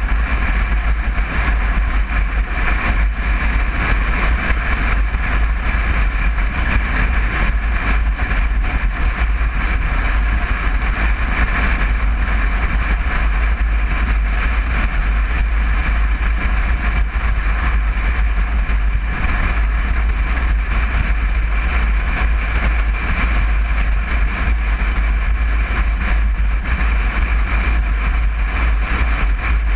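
Steady running noise of a 1961 Volkswagen Bus under way: its air-cooled flat-four engine with road and wind noise, a constant deep rumble that does not rise or fall.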